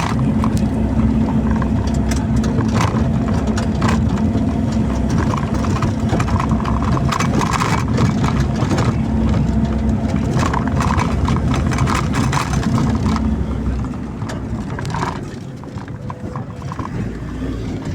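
A diesel engine of construction machinery running steadily, with repeated sharp knocks and metal clanks over it; the engine drops in level late on.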